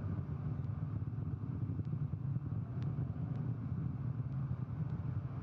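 Soyuz 2.1a rocket heard from the ground as a distant, steady low rumble, with faint clicks now and then.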